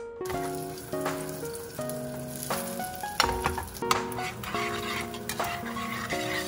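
Eggs sizzling as they scramble in a hot frying pan, with chopsticks stirring and scraping against the pan, over light background music.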